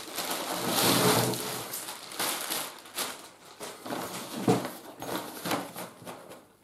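Thin plastic packaging crinkling and rustling as it is pulled off a packed folding camping cot, loudest about a second in, followed by scattered light knocks and rustles as the cot's fabric carry bag is handled.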